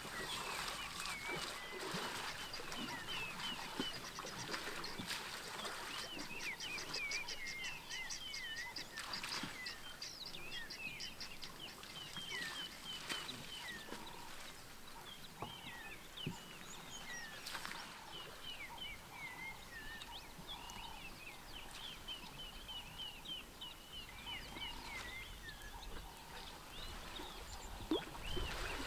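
Several birds calling at once: short chirps and whistles throughout, with a fast ticking trill about five seconds in and again around ten seconds in.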